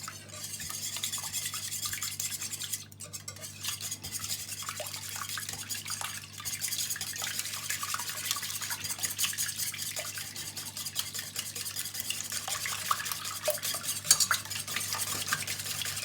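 Eggs, milk and grated cheese being beaten by hand in a bowl: a rapid, steady ticking of the utensil against the bowl, with brief pauses about 3 and 6 seconds in.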